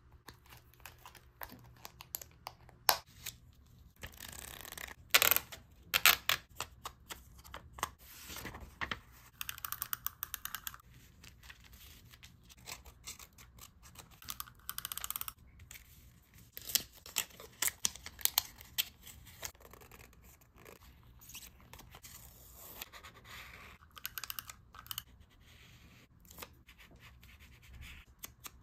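Close-up paper-craft sounds from journal decorating: paper and stickers rustling, tearing and being snipped, with many short sharp clicks and taps.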